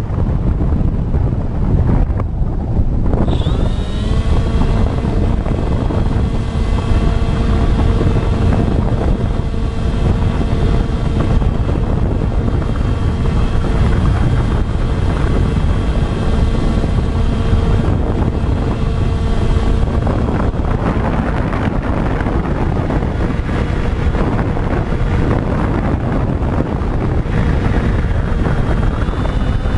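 Electric motors and propellers of a radio-controlled FPV model aircraft giving a steady whine that starts about three seconds in, shifts pitch about two-thirds of the way through and rises near the end, under heavy wind rumble on the microphone.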